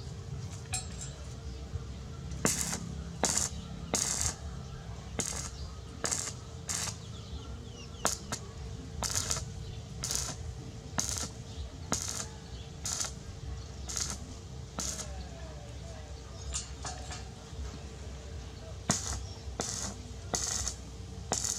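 Repeated sharp metallic clinks of metal striking metal, irregular, at about one or two a second, over a faint steady hum.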